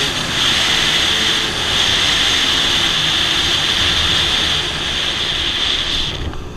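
Dirt bike being ridden at speed: the engine running under a steady rush of wind on a helmet-mounted camera's microphone, cutting off suddenly near the end.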